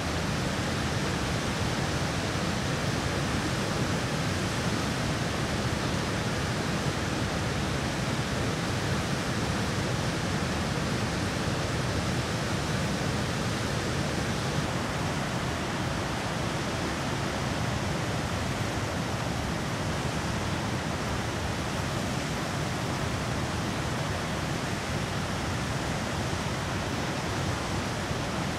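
Steady rushing outdoor noise with no distinct events; the high part of the hiss softens slightly about halfway through.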